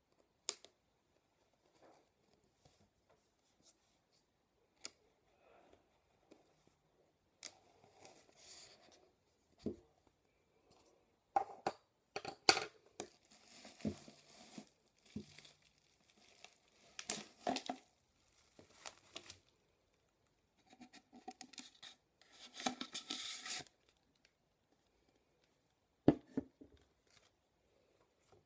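Hands opening a cardboard tube package: a few clicks and tape being cut and torn at the lid, then long scraping and rustling as the bubble-wrapped flat iron slides out of the tube, with a sharp knock a couple of seconds before the end as it is set down.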